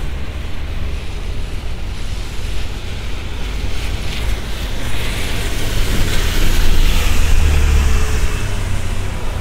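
A double-decker bus passing on a wet road, its tyres hissing on the rain-soaked tarmac, swelling to its loudest a little past halfway, over a steady low traffic rumble.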